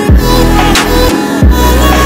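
Background music with a deep bass line and a steady beat.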